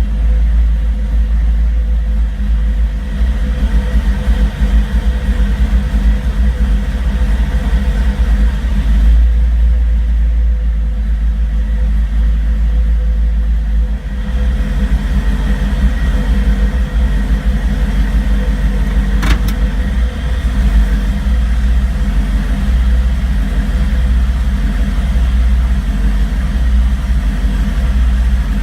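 Car engine idling roughly, a steady low running sound, with one brief sharp click about two-thirds of the way through.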